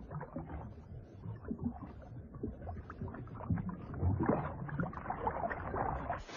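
Water sloshing and splashing in an irregular jumble, growing louder about four seconds in.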